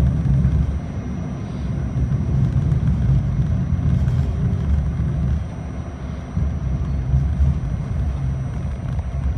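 R68A subway car in motion, heard from inside: a steady low rumble of wheels on the rails and the car body running.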